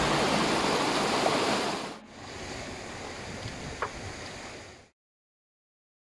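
A shallow mountain stream rushing and splashing over rocks: a steady even rush of water. It drops abruptly to a quieter rush about two seconds in, then fades out into dead silence near the end.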